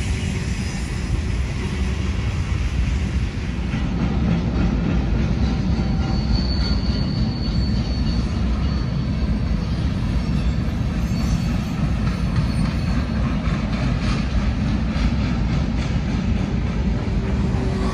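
Freight train cars rolling past with a steady rumble of wheels on the rails. A brief high wheel squeal comes about six seconds in.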